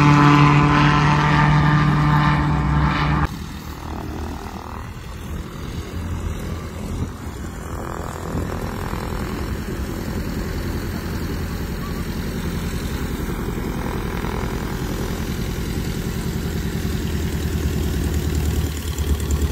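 A propeller light-aircraft engine runs close by with a loud, steady drone and cuts off abruptly about three seconds in. It gives way to the quieter, more distant hum and rumble of light-aircraft engines on the airfield, which swells slightly near the end as a plane taxis past.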